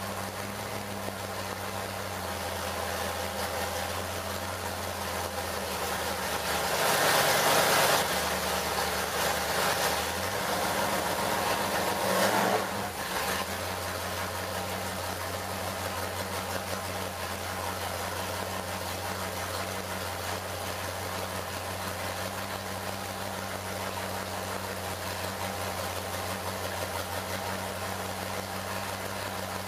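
Ford Motorsport 460 cubic-inch big-block V8 with Cobra Jet aluminum heads running on an engine dyno. It revs up briefly about seven seconds in and again about twelve seconds in, then settles back to a steady idle.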